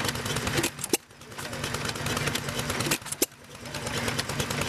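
1920 Amanco 3.5-horsepower hit-and-miss stationary engine running, with sharp clicks and a swell of engine noise that repeat about every two seconds. This uneven firing rhythm is the sign of its hit-and-miss governor, which holds the valves shut and lets the engine fire only when the flywheel slows.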